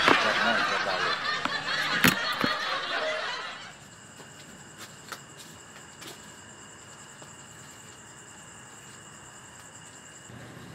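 A burst of laughter that ends suddenly about four seconds in. After it, only a faint steady background with thin high-pitched tones remains.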